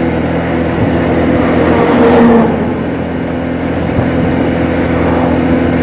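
Motorcycle engine running steadily while riding, with road and wind noise; a brief louder swell about two seconds in.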